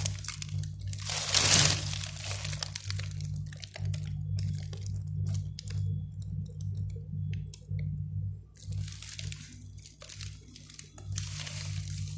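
Crinkling and rustling of plastic packaging being handled, in irregular bursts, over a steady low hum.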